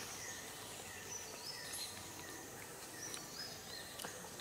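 Faint forest background with short, high bird calls repeated every second or so.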